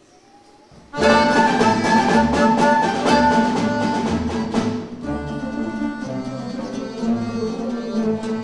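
Folk instrument ensemble of long-necked plucked lutes, violins and double bass starts playing all together about a second in, loudly, over a strong regular bass pulse; it eases somewhat about five seconds in.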